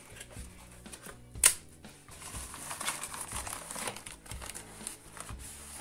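Cardboard box and packaging rustling as the box is opened and the contents are handled, with one sharp click about one and a half seconds in.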